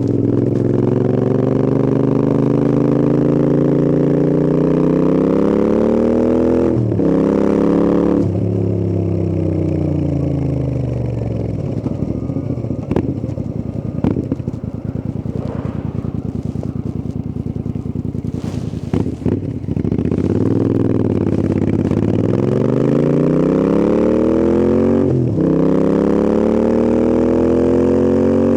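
Royal Enfield Interceptor 650's parallel-twin engine under way, revving up through the gears with a brief dip at each gear change. In the middle it slows on a closed throttle, with a few sharp pops on the overrun. It then pulls hard again through another shift.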